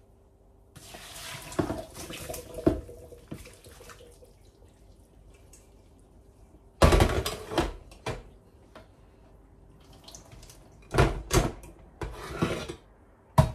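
Water poured from a stainless steel pot through a plastic colander into a steel sink, draining rice vermicelli. Several loud clunks and clatters follow as the pot and colander knock against the sink and each other, the loudest about halfway through and another near the end.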